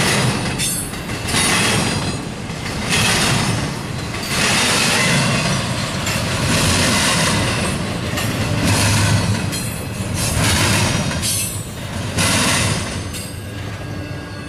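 Double-stack container well cars of a freight train rolling past, their wheels clattering and hissing on the rails in surges every second and a half to two seconds as each set of wheels goes by. The sound fades near the end as the last car clears.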